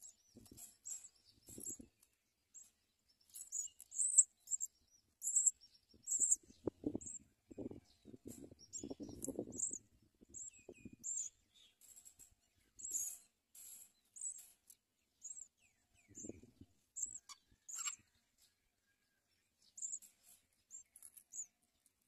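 Short, very high-pitched chirps from small songbirds at a nest, repeated irregularly throughout. Low rustling and bumping comes in from about six to eleven seconds in and briefly again near sixteen seconds.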